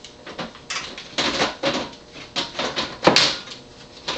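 Side panel of a Dell Studio 540 desktop tower being slid and pressed into place on the case, a run of scraping clicks and knocks with a sharper click about three seconds in.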